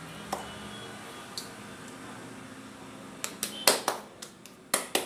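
Hands kneading jowar flour dough in a steel plate: a few quiet clicks at first, then a run of sharp slaps and knocks of dough and hands against the metal plate from about three seconds in.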